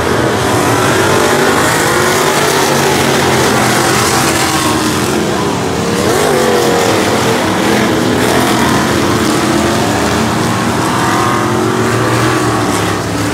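Several dirt-track stock cars racing around the oval, their engines running hard. The pitch rises and falls as cars come by, with one passing close about six seconds in.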